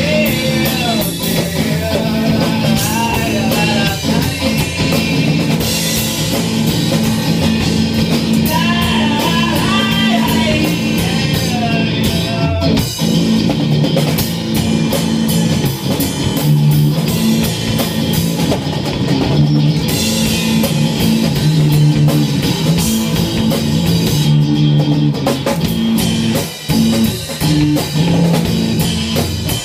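Rock band playing live in a small room: electric guitar and drum kit, loud and dense, with a wavering melodic line rising above the mix near the start and again about nine seconds in.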